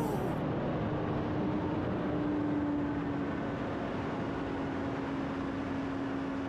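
Steady vehicle running noise: an even rumble and hiss with a constant mid-pitched hum, easing off slightly in level.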